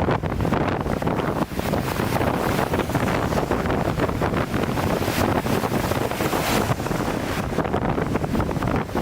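Strong wind buffeting the microphone over lake waves crashing against a breakwater, a loud, continuous rough rush.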